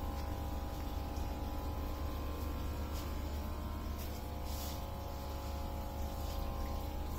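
A hydroponic Dutch bucket system running: a steady pump hum with water trickling as nutrient solution circulates from the reservoir.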